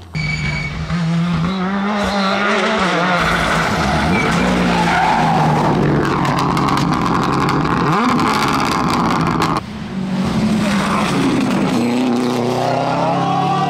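Rally car engines driven hard through corners, revving with a rising engine note about two-thirds through, with tyres skidding on a loose surface. The sound changes abruptly twice, near the start and about two-thirds through, as one car gives way to another.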